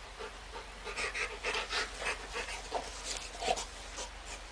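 A dog panting in quick, breathy bursts as it plays.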